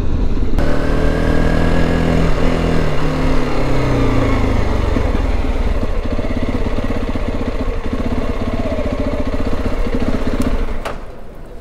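Motorcycle engine running at low speed, its pitch falling over the first few seconds as it slows, then holding steady. It gets quieter near the end.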